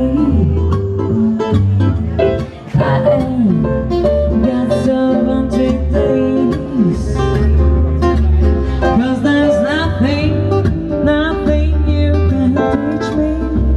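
Live band playing an instrumental passage between verses: a lead guitar bending notes over bass and drums, with a brief dip in the music about two and a half seconds in.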